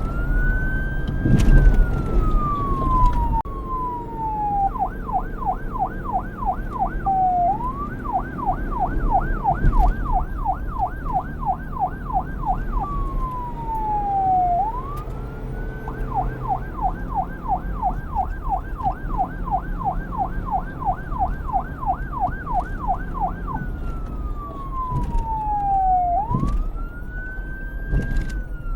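Electronic police siren cycling between a slow wail, rising and then falling, and a fast yelp of about four sweeps a second, over a low rumble.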